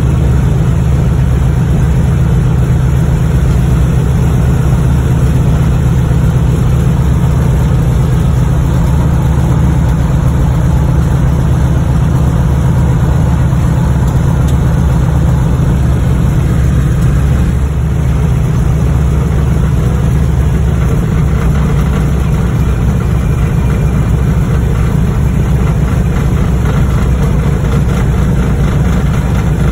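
Radial piston aircraft engine running steadily as the propeller plane taxis, heard from inside the cabin: a loud, unbroken, deep drone.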